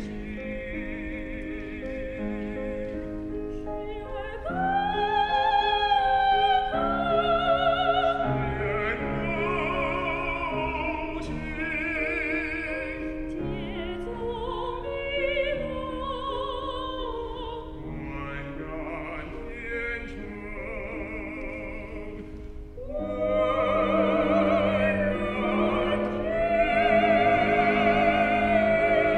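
Tenor and soprano soloists singing a Chinese-language art song in operatic style with wide vibrato, accompanied by piano. The singing swells louder about four seconds in and again for the last several seconds.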